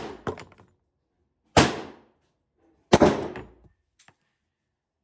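Pistol shots from a .45 ACP AMT Hardballer Longslide, muffled: two loud shots about a second and a half apart, with fainter sharp cracks between them.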